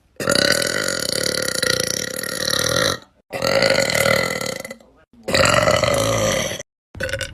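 A girl burping: three long, drawn-out belches one after another, the first lasting nearly three seconds, with a fourth starting near the end.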